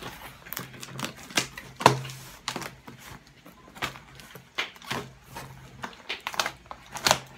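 A knife blade cutting through packing tape on a cardboard box, giving a run of irregular sharp crackles and scrapes. The cardboard flaps rustle as they are pulled apart near the end.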